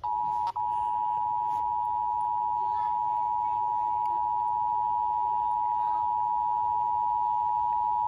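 Emergency Alert System attention signal: a steady two-tone beep held for about eight seconds, with a brief dropout about half a second in, cutting off abruptly at the end. It marks an EAS test on the station.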